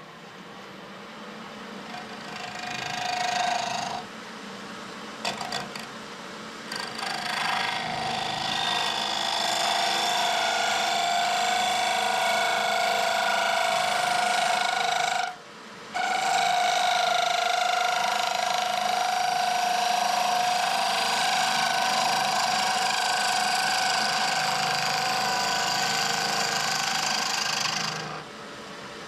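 A power tool working wood in long stretches over a steady low motor hum. It stops briefly about four seconds in, comes back in short spurts, runs steadily, cuts out for a moment about fifteen seconds in, and stops near the end.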